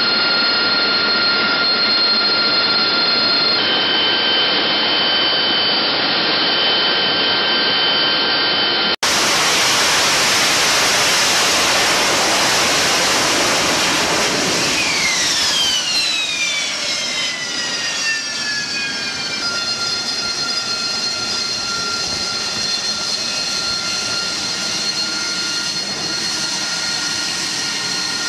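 AV-8B Harrier's Pegasus turbofan engine running at high power on deck with a steady high whine over a rush of jet noise. About nine seconds in the sound cuts to a louder rush, and a few seconds later its whine falls in pitch over several seconds as the jet lifts off and pulls away. It then settles to a steady whine from a Harrier still running on deck.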